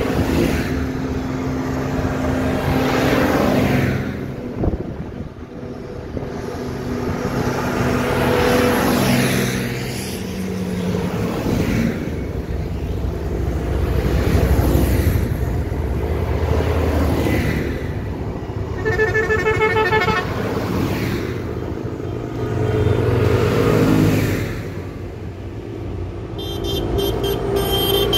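Farm tractors (New Holland and John Deere) driving past one after another, their diesel engines swelling and fading as each goes by. About two-thirds of the way through, a horn toots in a quick series of short blasts.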